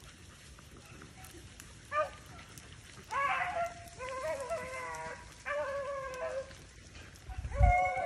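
Beagle baying on a rabbit's trail: a short yelp about two seconds in, then four long, drawn-out bawls of about a second each, the last near the end. A brief low thump comes with the last bawl.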